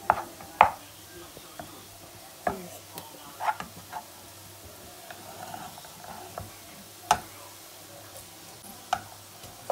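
Wooden spoon scooping cooked rice from one metal pot into a pot of stir-fried vegetables, with scattered sharp knocks and scrapes of the spoon on the pot rims. The loudest knock comes about half a second in and another near seven seconds.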